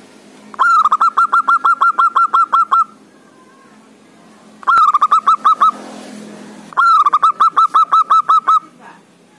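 Male zebra dove (perkutut) singing its loud staccato cooing song: three bouts of rapid repeated notes, each note dropping in pitch, about six a second. The first bout is the longest and the middle one the shortest.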